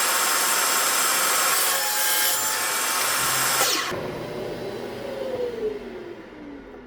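Table saw running and cutting wood. It is switched off a little under four seconds in, and its whine falls steadily in pitch as the blade spins down.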